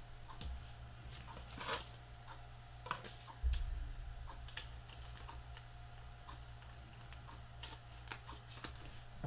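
Trading cards being handled and sorted on a table: irregular light clicks and taps, a brief rustle a little under two seconds in, and a low thump about three and a half seconds in, over a steady low hum.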